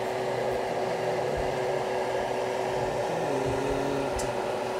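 Steady whirring hum of an electric fan-driven appliance, with an even low tone under it. There is a faint short tick about four seconds in.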